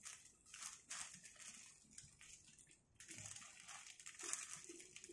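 Faint crinkling and rustling of a clear plastic bag in irregular bursts as it is handled and pulled around a packaged car grille.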